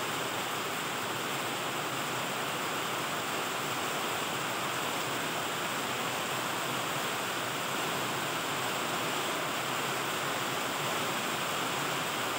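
Heavy rain falling in a steady downpour, an even hiss that does not let up.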